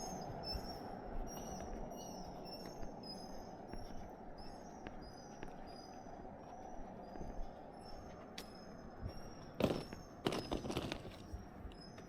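Small songbirds chirping in quick repeated high notes over a steady low background rumble, with a few loud short scuffs or rustles near the end.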